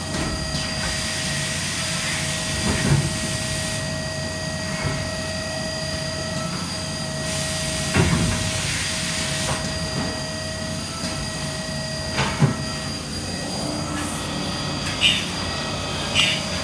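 Haas DM-1 CNC machining center running: a steady mechanical drone with a thin whine and coolant hiss. A sharp clunk comes about halfway through as the Midaco pallet changer shuttles a pallet, and another a few seconds later. Near the end, short repeated sounds come as the tool starts cutting in coolant mist.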